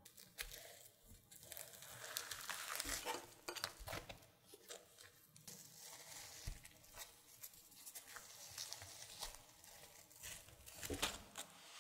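Thin layers of thousand-layer butter toast being pulled and torn apart by hand: a soft tearing with many small crackles from the flaky crust, a few louder near the end.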